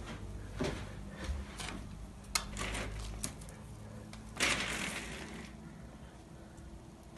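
Vertical window blind slats clicking and rattling as they are nudged aside, with a louder brushing swish about four and a half seconds in as they are pushed through.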